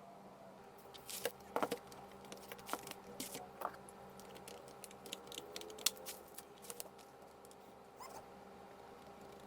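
Irregular clicks and taps of keys being pressed on the Acer Aspire E1-472G laptop's keyboard. A faint steady hum runs beneath them.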